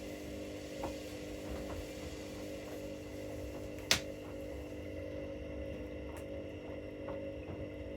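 Washing machine running mid-cycle, with a steady motor hum and a single sharp click about four seconds in.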